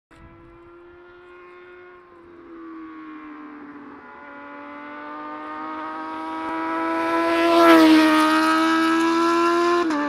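Sport motorcycle engine at high revs, its pitch dropping suddenly at gear changes about two seconds in and again at the end, then climbing again. It grows steadily louder and peaks as it passes close by about eight seconds in.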